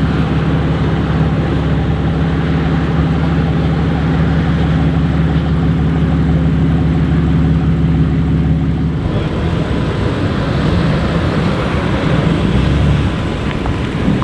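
BMW M3 F80's twin-turbo inline-six, breathing through a full titanium Innotech Performance Exhaust, running at a steady, unchanging engine note. About nine seconds in the steady note breaks off into a rougher, fluctuating engine and road sound.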